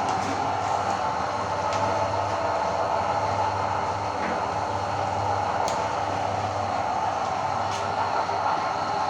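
Electric meat grinder running steadily, a constant motor hum.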